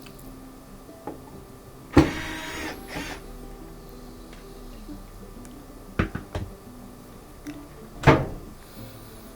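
Cordless power screwdriver whirring in three short bursts, about two, six and eight seconds in, backing screws out of a front-loading washer's front panel; the first burst is the longest.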